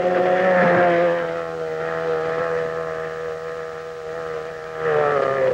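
Racing outboard motors running flat out on small race boats, a steady high engine whine from more than one motor. It fades a little in the middle and swells again near the end, its pitch dipping slightly as it does.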